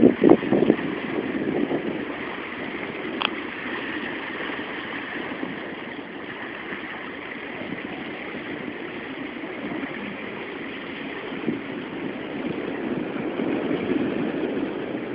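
Steady outdoor rushing noise, with wind gusting on the microphone in the first second and a single click about three seconds in.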